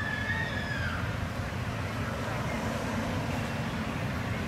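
Outdoor background noise: a steady low rumble. A single high, steady whistle is held through the first second and then drops away.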